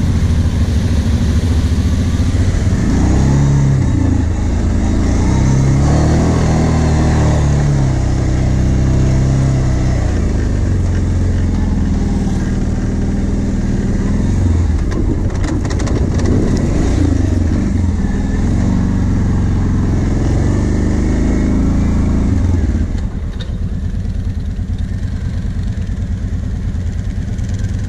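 Quad (ATV) engine revving up and down as it is ridden, settling to a steady idle about three-quarters of the way through.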